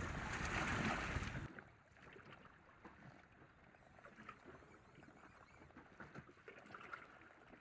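Wind on the microphone and choppy sea water, which drop off sharply about a second and a half in. What is left is the faint lapping of small waves, with a few light splashes.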